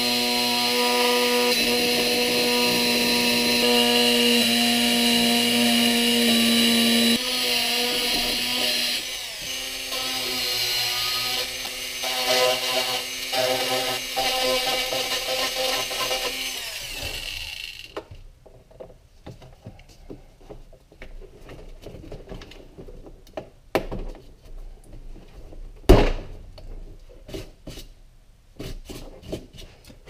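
Dremel rotary tool with a right-angle attachment running at speed and grinding out a hole in a plastic trim panel, its whine shifting and wavering in pitch as the bit bites; it winds down a little over halfway through. After that come light clicks and knocks, with one sharp louder knock near the end.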